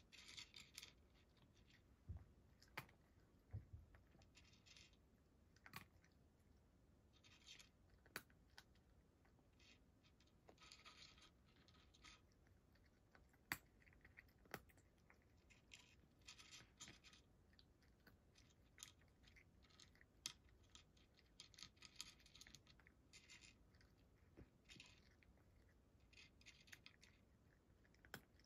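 A cat crunching dry kibble: faint, irregular bursts of crunching every few seconds, with a few sharp clicks between them.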